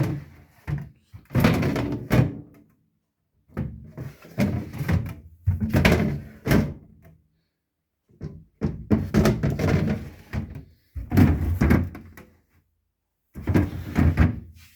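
Plastic freezer drawers of a fridge freezer being slid open and pushed shut in about four separate bouts, rumbling on their runners and closing with thunks.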